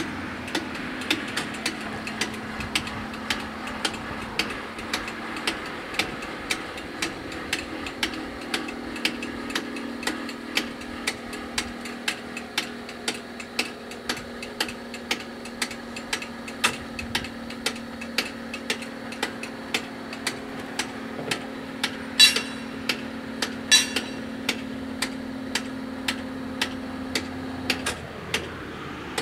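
Level crossing warning bells striking steadily, a bit under two strikes a second, over a steady electric hum, with two louder strikes a little past two-thirds of the way through. The ringing goes on while the barriers lift after the train has passed, and stops as the red lights go out shortly before the end.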